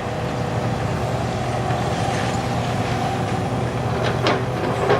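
Diesel engine of a demolition excavator running steadily, a constant hum with a few steady tones above it.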